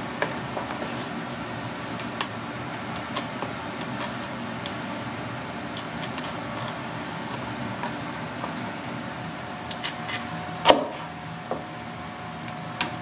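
Kitchen knife clicking and tapping against snow crab leg shells and a wooden cutting board as the shells are slit open: scattered light clicks over a steady background hum, with one louder knock near the end.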